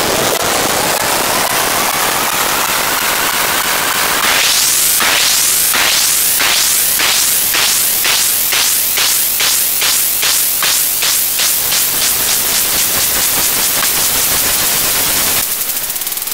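Loud, harsh distorted electronic noise like heavy static, with a pitch rising steadily for about the first four seconds. It then breaks into a run of quick rising sweeps, about two a second, dipping briefly near the end.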